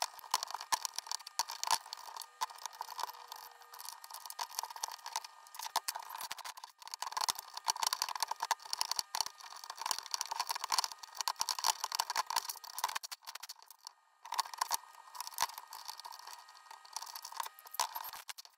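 Cordless impact driver hammering on the bolts of a steel puller plate, a dense metallic rattle that runs on with brief stops about seven and fourteen seconds in, as the bolts draw a tightly seized rotor out of the pump housing.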